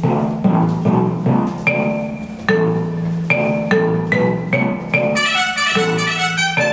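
Instrumental music with a steady beat of struck, pitched notes; a brighter, busier run of high notes comes in about five seconds in.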